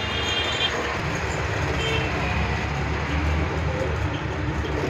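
Steady road-traffic rumble, with a vehicle horn sounding at the start and a brief horn toot about two seconds in.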